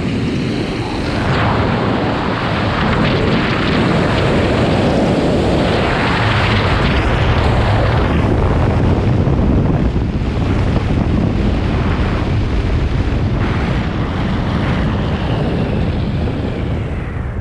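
Heavy wind rushing over the camera's microphone as a skydiver flies a parachute canopy down through turns, surging and easing in waves; it eases off near the end as the jumper lands.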